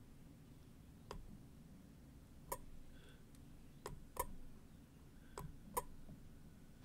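Light taps of a pencil on a brass piezoelectric disc: about six faint, sharp ticks at irregular intervals, two of them in quick pairs. Each tap is a press on the disc that makes it generate a voltage.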